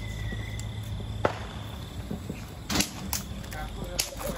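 A few sharp cracks at irregular intervals, the loudest about a second in and near three seconds, over a steady high-pitched whine.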